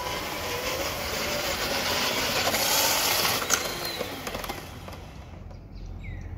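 Homemade RC dump truck running across rough concrete: motor and gear whine with tyre rumble, growing louder to about three seconds in, with one sharp knock, then dropping away as the truck slows.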